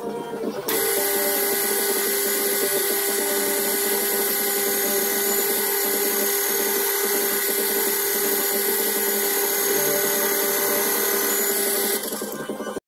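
Bench metal lathe starting up about a second in and running steadily with its chuck spinning, giving an even whine with several fixed tones. The sound drops near the end.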